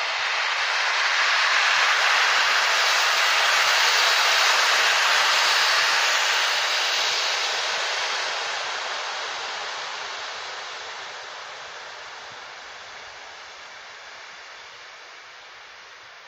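A locomotive-hauled intercity passenger train rolling past as it arrives at a station: a steady rush of wheels on rails that builds over the first couple of seconds, holds, then fades slowly as the train moves away.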